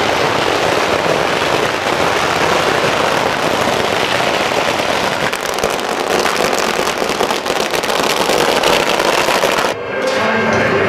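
Strings of firecrackers going off in a dense, continuous crackle of rapid pops, cutting off suddenly near the end.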